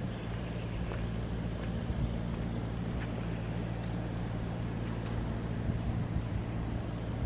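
Steady low hum of a running machine, unchanging throughout, with a few faint short ticks.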